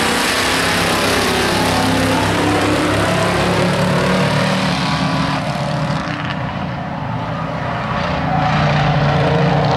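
Engines of a pack of stock pickup race trucks running together on an oval track: a loud, steady drone of several engines at once. It eases slightly about six seconds in and swells again near the end as the pack comes around.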